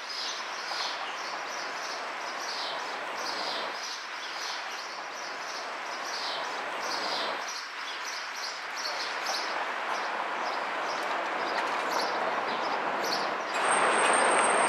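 Small birds chirping over and over, two or three short chirps a second, over a steady hum of city street noise. Near the end the background suddenly gets louder, with a thin, high, steady whine.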